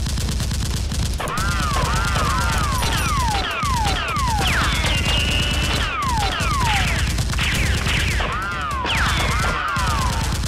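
Continuous rapid gunfire sound effects, machine-gun-like volleys without a break. They are laced from about a second in with many short whines that fall in pitch, plus a few rising-and-falling sweeps.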